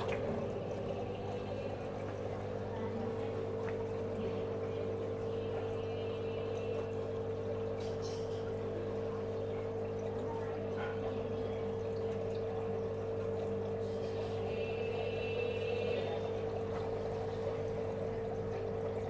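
Aquarium equipment humming steadily, with water trickling and splashing into the tank.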